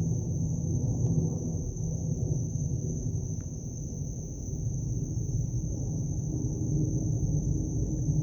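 A steady, unbroken low roaring rumble from the Everglades, of unknown origin, with a thin steady high tone above it.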